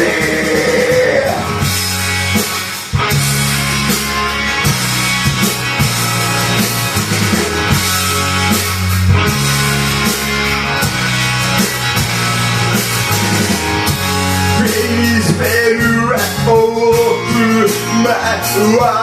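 Rock song with guitar, bass and drums; a sung voice comes in near the end.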